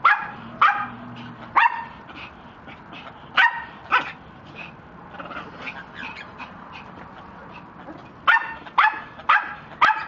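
A husky barking in short, high yips in clusters: three near the start, a pair about three and a half seconds in, and a quick run of four in the last two seconds.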